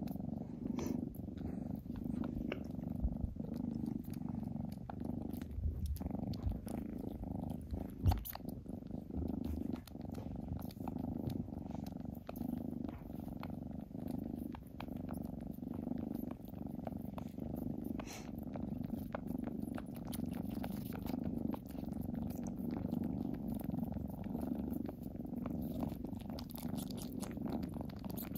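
Kitten purring steadily, with one brief soft knock about eight seconds in.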